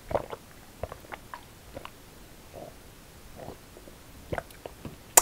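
A person gulping water from a glass: a string of short swallowing gulps and wet mouth clicks, with a sharp click right at the end.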